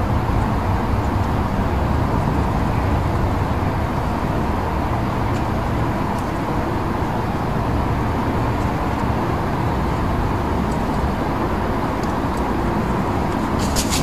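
Steady low rumble of road traffic, with a brief rapid high rattle near the end.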